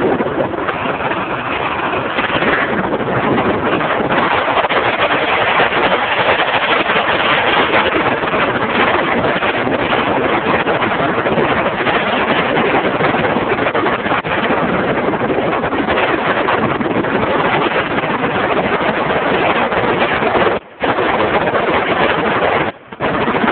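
Honda CG Titan single-cylinder motorcycle riding along at speed, heard as a loud steady rush of wind on the microphone over the engine. The sound cuts out briefly twice near the end.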